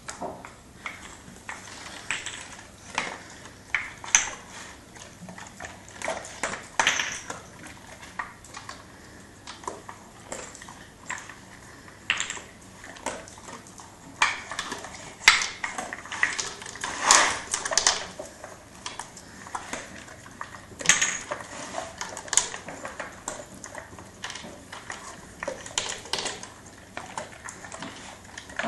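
Irregular clacks and clatters of a wooden dog puzzle toy as two dogs nose at it: wooden pegs knocked out and dropping onto a tile floor, and the toy and a plastic slow-feeder bowl knocking and sliding on the tiles.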